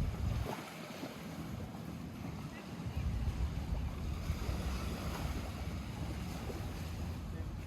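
Lake water sloshing and lapping, with gusts of wind rumbling on the microphone, the rumble heavier after about three seconds.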